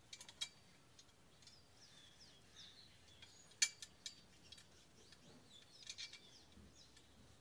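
Sharp metallic clicks and clinks as the steel ring clamp of a solar insect-trap stand is bolted onto its pole. The loudest click comes about three and a half seconds in, and more follow near the end. Small birds chirp in the background.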